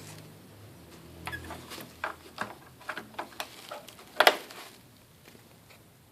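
Things being handled during an unboxing: a run of light clicks and knocks, with a louder double knock about four seconds in.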